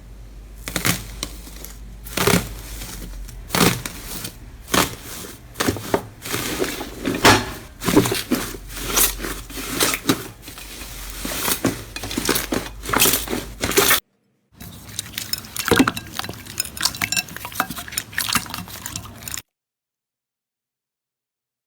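Slime being squeezed and poked by hand, making dense irregular crackling and clicking. There is a brief break about two-thirds of the way through, then finer crackles, and the sound cuts to silence near the end.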